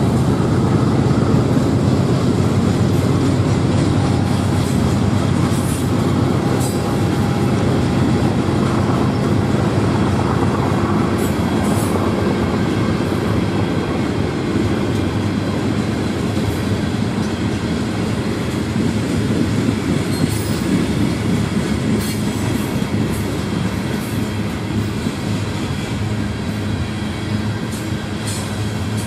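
Freight train of open-top hopper cars rolling past: a steady rumble and clatter of steel wheels on the rails, with a few brief high-pitched squeals.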